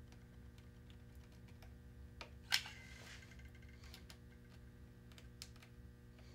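Manual caulking gun squeezed as it lays a bead of caulk along a seam: faint scattered clicks and one louder clack with a brief ring about two and a half seconds in.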